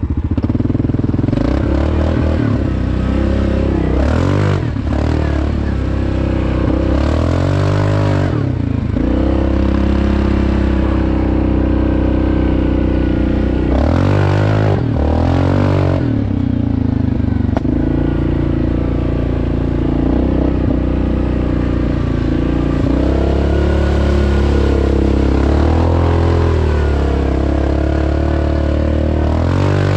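Yamaha Grizzly 700 ATV's single-cylinder engine running under throttle, its pitch rising and falling several times as the throttle opens and closes.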